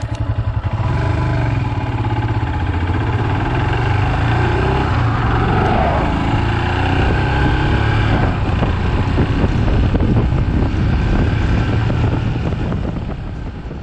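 Royal Enfield Himalayan's single-cylinder engine pulling away from idle and accelerating along the road, its pitch rising as the revs climb, with wind noise over the microphone. It fades out near the end.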